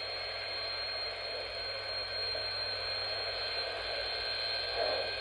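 Steady hiss and electrical hum from the recording itself, with a faint, constant high-pitched whine; no distinct event.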